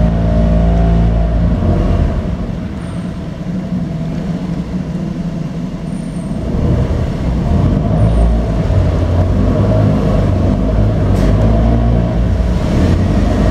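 Small tour boat's motor running steadily. It eases off about two seconds in and picks up again after about six seconds.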